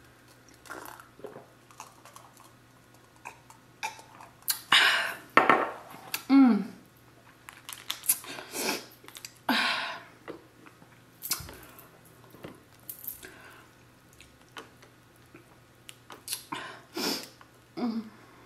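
Close-miked eating sounds of a person working through a seafood boil: chewing and mouth smacks with scattered short clicks, and a brief low vocal murmur about six seconds in.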